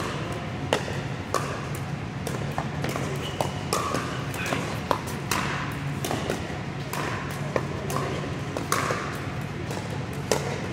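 Pickleball rally: paddles hitting the hard plastic ball in many sharp pops at irregular intervals, over a steady low hum.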